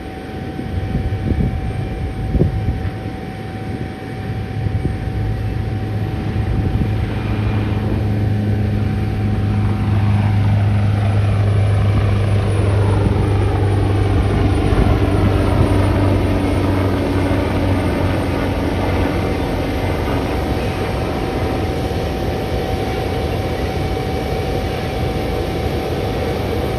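Helicopter taking off: a deep rotor beat builds over the first few seconds, is loudest in the middle, and fades out in the second half, over a steady high whine.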